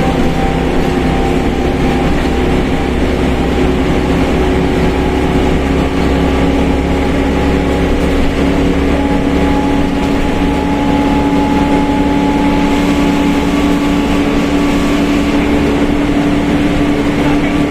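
Mercedes-Benz OF1721 BlueTec 5 bus under way, its engine running with a loud droning whine from the differential, the pitch of the drone rising slowly.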